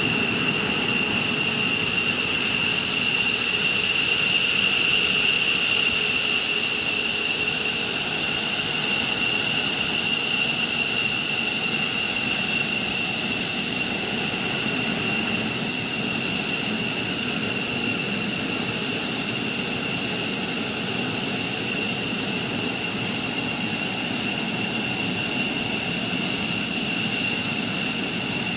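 Jet engine running steadily, a constant rushing hiss with a high-pitched whine over it.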